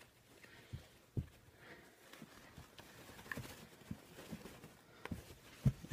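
Faint handling sounds of a fabric drawstring mask bag being untied and rustled, with a few scattered light clicks and knocks.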